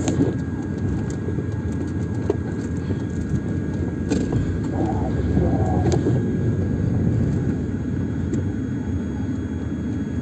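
Cabin noise of a Mercedes-Benz W202 rolling slowly on wet pavement: a steady low rumble of engine and tyres, with a few sharp clicks in the middle.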